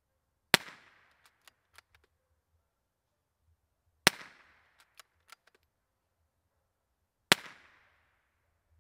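Three suppressed .22 LR rifle shots, about three and a half seconds apart, from a Remington 597 fitted with a TBA Peacemaker rimfire suppressor. Each is a sharp crack with a short trailing echo, followed by a few light clicks.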